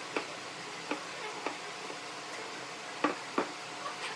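Curved wooden chair pieces knocking and clacking as they are handled and set against each other and the plywood bench top: a handful of sharp wooden knocks, the two loudest close together about three seconds in, over a steady background hiss.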